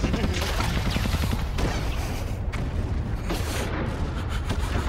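Battlefield gunfire and shelling: a continuous low rumble of explosions with scattered rifle and machine-gun shots, growing into a rapid cluster of shots near the end.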